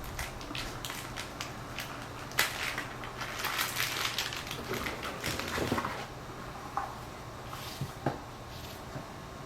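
Packaging crinkling and rustling as it is handled, a dense run of crackles about two to six seconds in, then a few light taps.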